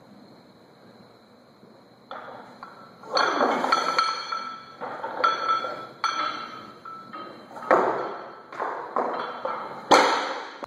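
Loaded Olympic barbell with bumper plates clanking and rattling through a lift, the plates and collars clinking and ringing with each jolt from about two seconds in. Near the end the bar is dropped and hits the floor with the loudest crash, then bounces.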